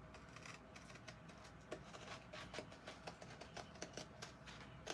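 Scissors cutting paper in short snips: faint, quick clicks of the blades closing, with the sheet rustling as it is turned.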